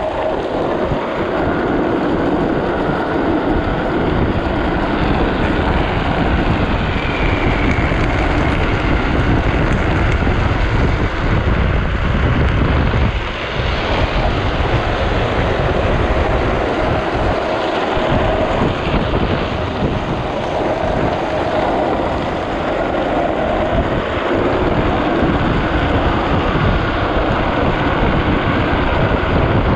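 Steady wind buffeting on the microphone mixed with the rumble and hiss of a drift trike's hard plastic rear wheels sliding over wet asphalt at speed downhill.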